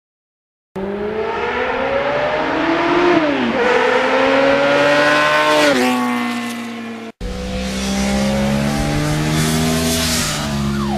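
Vehicle engine accelerating through the gears: its pitch climbs, drops at a gear change, then climbs and drops again. A brief cut-out comes about seven seconds in, after which the engine keeps running more steadily.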